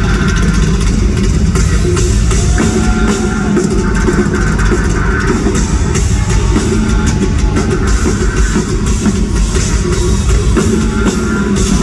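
Live heavy metal band playing loud, with a pounding drum kit and distorted guitar, heard from the crowd in a large arena.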